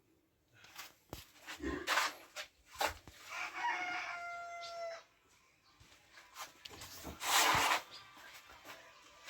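A rooster crows once, a single held call of nearly two seconds, among scattered clicks and knocks. About seven seconds in comes a short, loud rasping noise.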